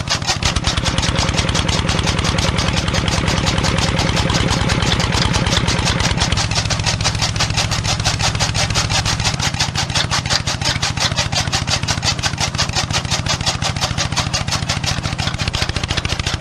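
Small engine of a home-built mini tractor running steadily, a fast even train of firing pulses with slight changes in tone a few times.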